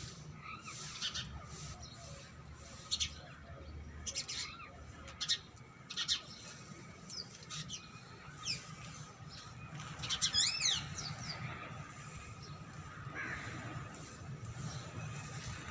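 Rose-ringed parakeets (ringneck parrots) giving short, shrill calls one after another, with a quick flurry of several calls about ten seconds in.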